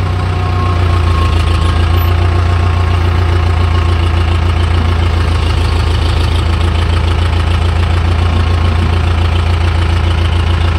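Diesel tractor engine running steadily, heard from the driver's seat beside its upright exhaust: a strong, even low hum.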